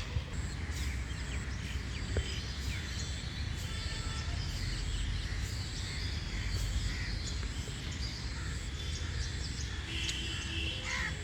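Several birds chirping and calling, many short overlapping notes, over a steady low background rumble.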